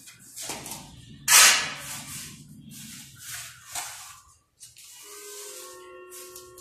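A hoe scraping and chopping through a bed of wet cement mortar on a concrete floor: several rough strokes, the loudest about a second and a half in. After a short break about four and a half seconds in, softer scraping of a trowel spreading the mortar, with a few steady tones underneath.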